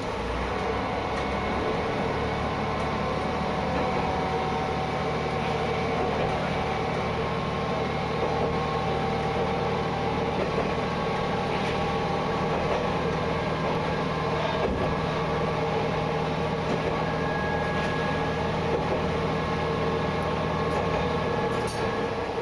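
Diesel railcar's engine running steadily as it travels along the track, with the rumble and noise of the moving train.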